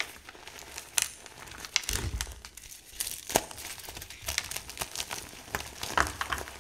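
Reformed gym chalk made from baby powder, crushed and crumbled between the hands: soft powdery crunching with many short, sharp crackles, and a duller press about two seconds in and again near the end.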